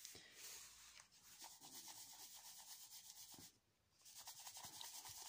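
Faint gritty rubbing and scraping of homemade black powder mix (ground potassium nitrate, charcoal and sulfur) being stirred and worked around a plastic bowl. It breaks off briefly a little past halfway.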